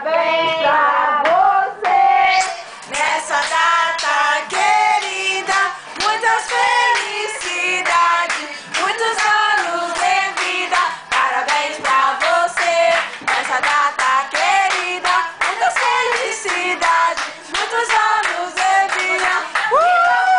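A small group singing a birthday song together, with rhythmic hand clapping throughout. Near the end a long high rising call comes in over the singing.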